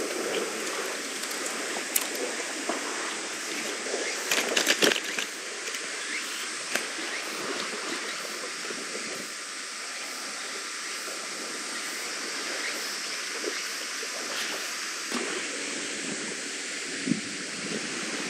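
Steady seaside rush of wind and lapping water, with a few sharp clicks and a short clatter about four to five seconds in.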